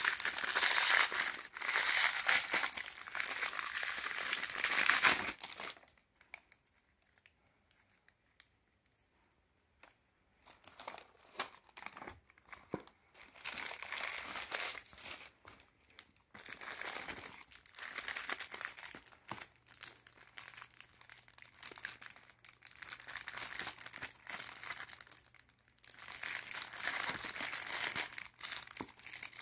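Plastic packaging crinkling as wrapped items are handled. It comes in loud bursts at first, goes almost quiet for a few seconds after about six seconds in, then returns in shorter bursts of rustling.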